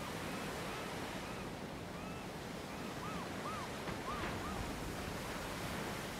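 Sea waves washing steadily against rocks, with some wind. About halfway through come four short, arching whistled calls in quick succession, with a few fainter ones before them.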